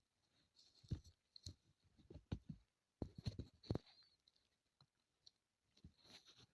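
Irregular light clicks and knocks from hand tools and small engine parts being handled during motorcycle engine assembly, with short silent gaps between them.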